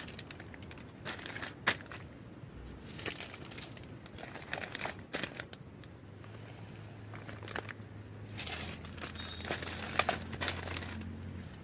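Plastic ziplock bags crinkling and rustling as food packets and containers are handled and set down, with a few sharp knocks of items being put down, the loudest near the start and near the end.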